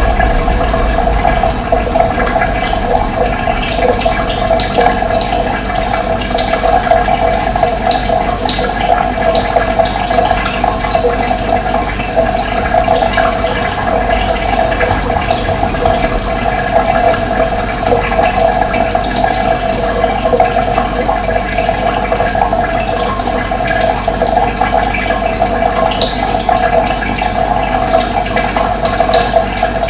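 Running water flowing steadily with a continuous rush and gurgle.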